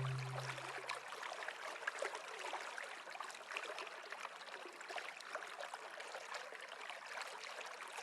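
River water running and trickling steadily, with a fine patter of small splashes. A soft held music chord fades out in the first second.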